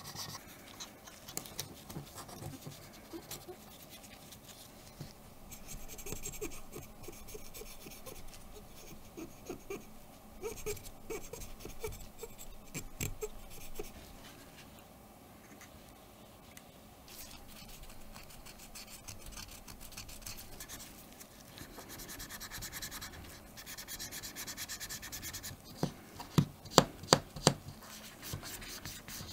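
Cotton swab scrubbing the Minolta AL-F rangefinder's metal cover plate: soft, irregular scratching and rubbing with light ticks. Near the end comes a quick run of about five sharp taps.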